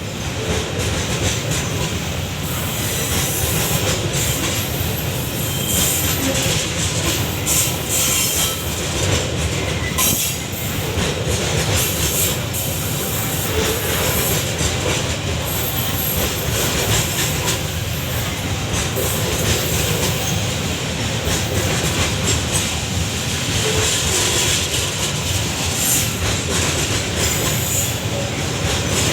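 Wagons of a Babaranjang long coal train rolling by, a steady loud rumble with the wheels clattering over the rail joints and brief high wheel squeals now and then.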